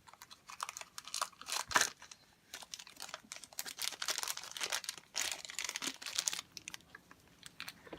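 A small toy surprise package being opened by hand: its wrapping crinkles and tears in irregular crackles, with one sharp snap about two seconds in, then it goes quiet for the last second or so.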